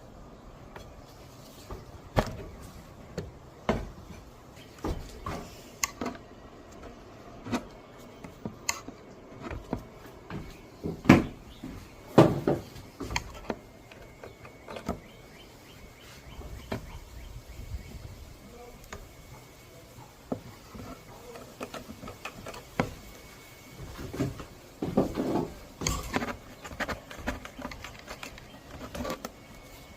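Wooden board-frame pieces being handled and set down, giving irregular knocks and clatters of wood on wood, a few of them louder, about eleven seconds in and again near the end.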